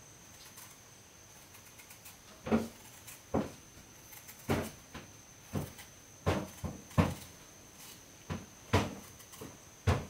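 A series of irregular knocks, roughly one a second, starting about two and a half seconds in, over a faint steady high-pitched whine.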